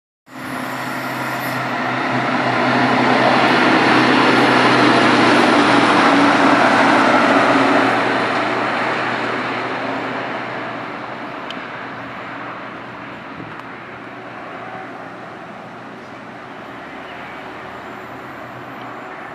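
Diesel engines of a Matisa tamping machine and a Plasser & Theurer SSP 110 SW track machine running along the track with a steady engine drone. It grows louder to a peak a few seconds in, then fades gradually as the machines move away.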